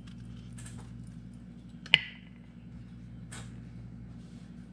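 A pencil set down on a painted tray, making one sharp clack with a short ring about two seconds in. Around it, faint rustles of handling cardboard tubes and soil over a steady low hum.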